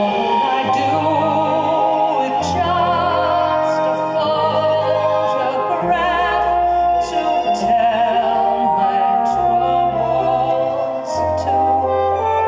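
A woman singing a slow song with wide vibrato into a microphone, accompanied by a live band with double bass playing long low notes.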